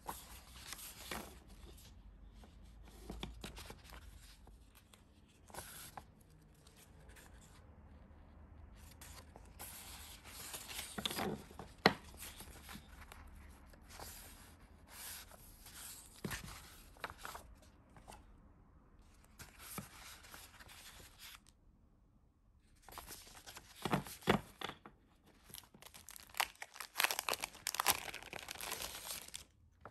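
Plastic packaging and sheets of paper rustling, crinkling and tearing in irregular bursts as they are handled. A few sharp snaps stand out, the loudest about twelve seconds in.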